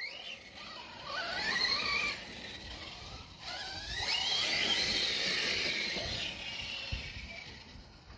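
Arrma 6S brushless RC truck whining under throttle, the pitch rising twice as it accelerates. The second run holds high for a couple of seconds, then fades.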